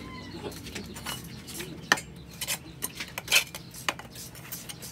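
Irregular sharp metallic clinks and taps, about half a dozen, the loudest about two seconds in: a rod knocking against the inside of a motorcycle exhaust muffler canister while fiberglass packing is stuffed into it.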